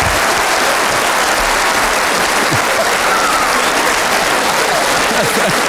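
Studio audience applauding steadily, with laughter mixed in, in response to a joke.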